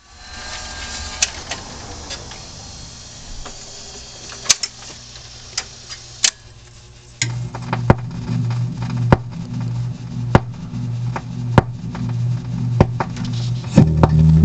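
1969 Rock-Ola 440 jukebox mechanism cycling: a motor whirs with sharp clicks as the changer moves a 45 rpm record onto the turntable. About halfway through, a low hum sets in with a regular tick about every second and a quarter as the record spins under the needle, and music starts right at the end.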